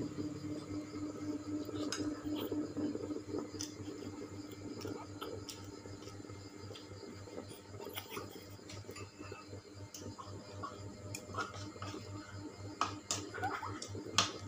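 Beef and vegetables sizzling and crackling on a hot grill plate, over a steady low hum. A couple of sharper clicks stand out near the end.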